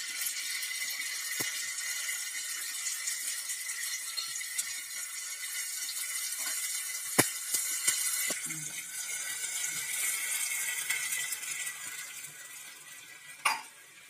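Green chillies and tempering spices sizzling and bubbling in a small pan on a gas burner, a steady hiss that fades near the end. A spoon clinks against the pan a few times, the loudest about seven seconds in and just before the end.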